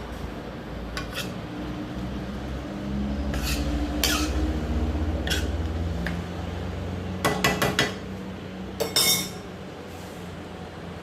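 A cooking utensil clinking and scraping against a frying pan as the vegetables and chicken are stirred, with scattered knocks, a quick run of four taps a little past the middle and another clatter about nine seconds in.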